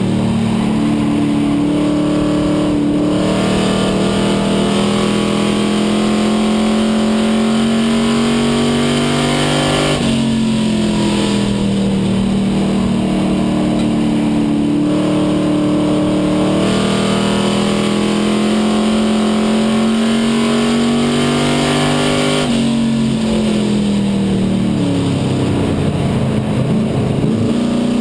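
Stock race car's engine heard from inside the cockpit under racing load. Its pitch climbs slowly along the straights and falls sharply as the driver lifts for the turns, twice, about twelve seconds apart.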